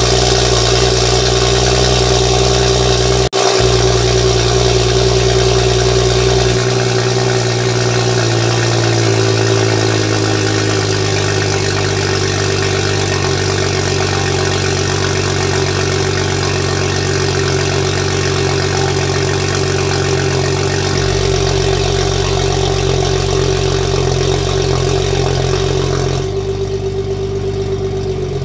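BMW F30 335i's turbocharged N55 inline-six idling after a cold start, heard at the tailpipes with the exhaust valves open. The fast cold idle drops a little between about six and eleven seconds in, then holds steady.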